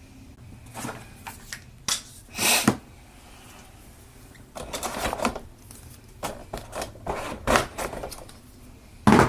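An action figure's cardboard-and-plastic packaging being handled and opened: irregular crinkling, scraping and rustling with scattered sharp clicks, the longest rustles about two and a half seconds and five seconds in.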